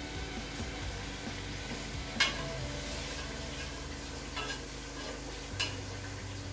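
Fish frying in hot oil in a pot, sizzling steadily. Three sharp knocks against the pot: the loudest about two seconds in, the others near four and a half and five and a half seconds.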